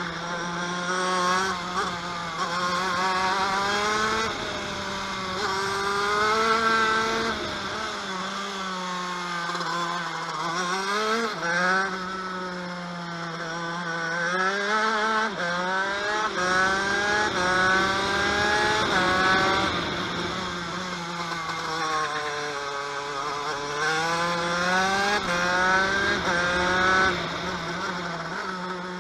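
TM KV92 125cc two-stroke shifter kart engine at racing speed: the revs climb again and again, falling back briefly at each upshift, and drop away twice for slower corners before pulling up again.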